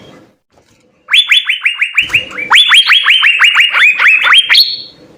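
Asian fairy-bluebird (cucak biru) singing a fast run of loud whistled notes, each sliding downward, about six a second. The song starts about a second in and ends on one higher held note.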